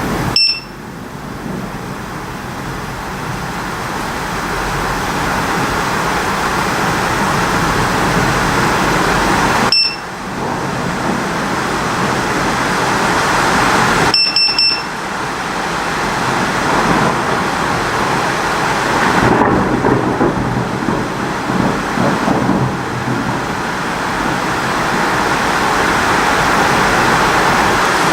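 Heavy thunderstorm rain pouring steadily, with a low thunder rumble building about two-thirds of the way through. Short high beeps from a Strike Alert HD lightning detector sound near the start, at about ten seconds and at about fourteen seconds, each marking a detected lightning strike.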